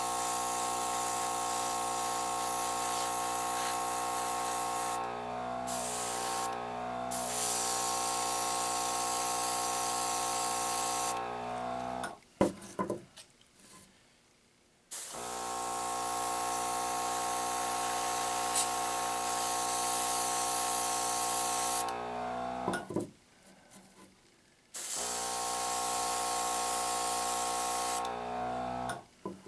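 Airbrush spraying paint with its compressor humming steadily under the hiss of air; the spray cuts out briefly twice about five to seven seconds in. The whole sound stops twice for a couple of seconds, with a few clicks, and starts again.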